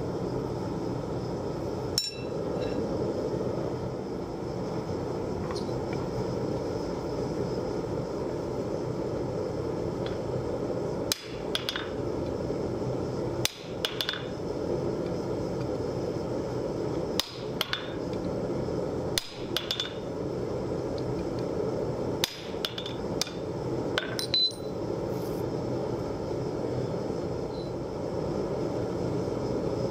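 Hand hammer striking a hot hex steel bar on an anvil: about fourteen sharp blows, one alone near the start, then mostly quick pairs with pauses between them, stopping a few seconds before the end. A steady roar from the forge runs underneath.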